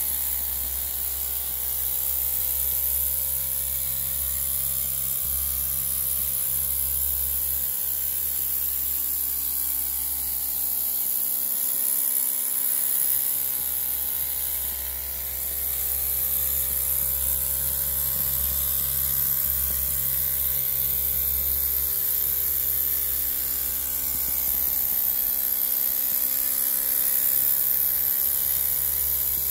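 Miniature live-steam traction engine running under steam, its small engine giving a steady fast buzz under a high hiss.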